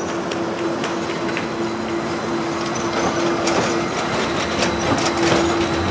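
Low-floor electric tram passing close by on street rails: a steady hum over the rolling noise, with wheel clicks and rattles that get louder from about three seconds in.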